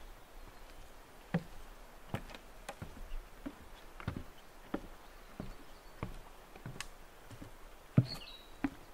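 A hiker's footsteps on a trail, a sharp tap about every two thirds of a second at a steady walking pace. A small bird chirps once near the end.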